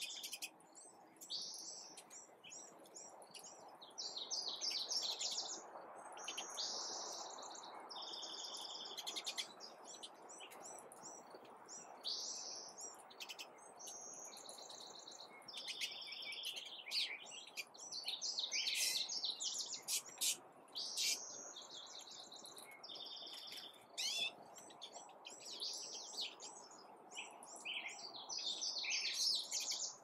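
Several small songbirds chirping and singing, short calls, trills and warbled phrases following one another with hardly a pause.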